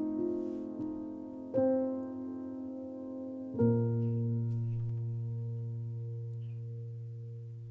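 Slow background piano music: soft chords, a new one struck about a second and a half in and another at about three and a half seconds that rings on and slowly fades.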